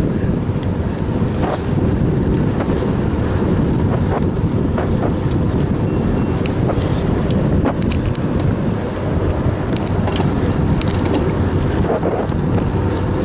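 Wind buffeting the microphone of a camera on a bicycle ridden at about 25 km/h, a steady low rush, with scattered short clicks and rattles from the bike on the road.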